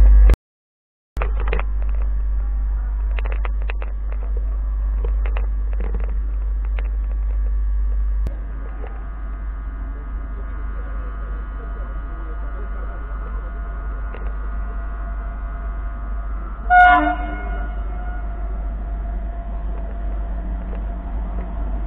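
MEMU electric train sounds from on board: a constant deep rumble with scattered knocks and clicks, then a steady electrical whine from about 8 seconds in. About 17 seconds in, a single short train horn toot, the loudest sound. The sound cuts out for under a second just after the start.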